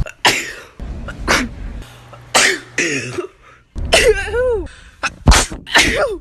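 A woman sneezing repeatedly: about six sharp, breathy sneezes in quick succession, one about four seconds in with a voiced cry that falls in pitch.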